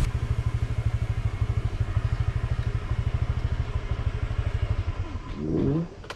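Small motor scooter engine running at idle with an even low putter, then switched off near the end.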